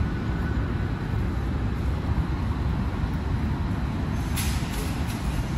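Steady low rumble of a large indoor hall's background noise, with a brief hiss about four and a half seconds in.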